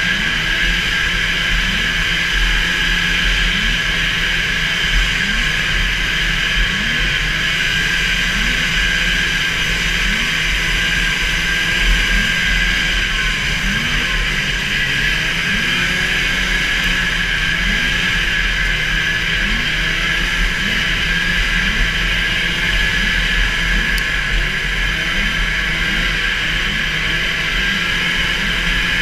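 440 super stock racing snowmobile's two-stroke engine running hard at high, steady revs, heard from onboard the sled with wind rush over the microphone.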